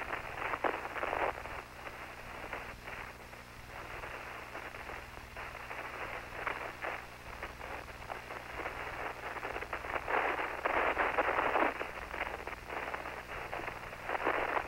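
Static and hiss on an open radio communications channel, crackling and rising and falling in level, louder for a couple of seconds near the end, over a steady low electrical hum.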